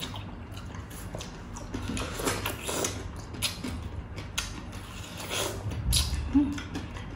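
Two people eating watermelon and crispy pork knuckle: wet chewing, lip smacks and slurps of juicy watermelon, with many short clicks throughout. A dull bump comes about six seconds in.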